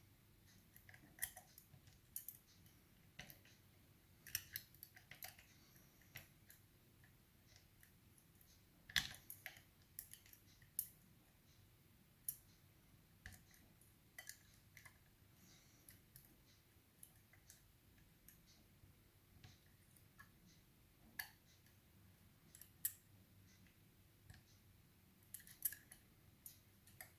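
Faint, irregular metallic clicks and ticks of a lever-lock pick and tension tool working the levers of an Asec BS 5-lever mortice lock, with near silence between them.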